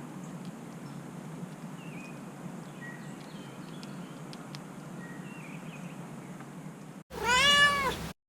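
Domestic cat giving one loud meow near the end, about a second long, rising and then falling in pitch. Before it there is only steady outdoor background noise with a few faint, short bird chirps.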